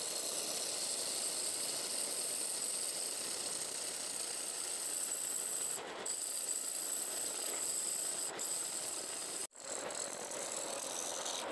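Wood lathe running with a turning tool cutting into a spinning cumaru blank: a steady scraping rush of the tool shaving the wood. It eases for a moment about six seconds in and cuts out for an instant about two seconds before the end.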